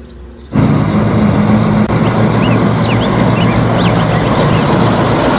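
Mack semi-truck tractor unit's diesel engine running steadily as the truck drives along the road, starting abruptly about half a second in. A few short high chirps sound above it.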